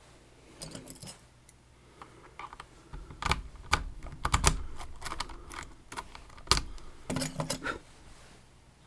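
Irregular small metallic clicks and rattles of a Dierre New Power lock and metal tools being handled, coming in clusters, with one louder knock about six and a half seconds in.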